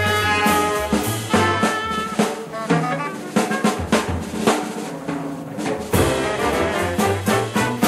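Jazz band playing, with the brass section and drum kit together. Sharp snare and bass drum hits come to the fore after the first couple of seconds while the low bass drops out.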